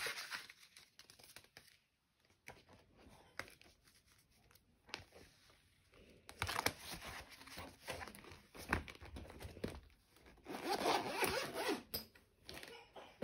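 Paper envelopes and polymer banknotes rustling and tapping as cash is slid into an envelope and filed in a zip-around binder. A zipper is run along the binder shortly before the end.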